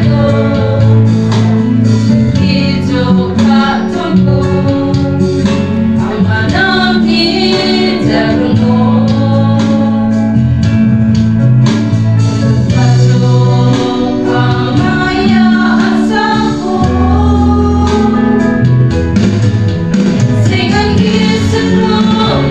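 A group of women singing a Christian hymn together into a microphone, with steady low held notes underneath that change every few seconds.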